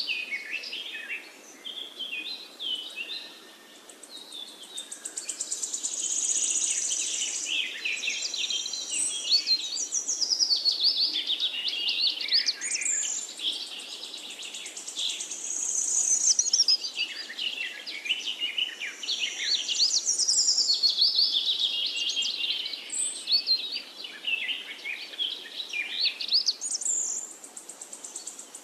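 Birdsong: many birds chirping and trilling at once, in quick rising and falling whistles that swell and fade every few seconds.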